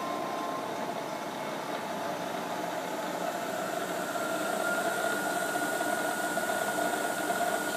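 Fryer MB-12 bed mill's spindle head running steadily in its high range while the variable speed is dialled up. The hum grows slightly louder, and a thin higher whine comes in about two-thirds of the way through.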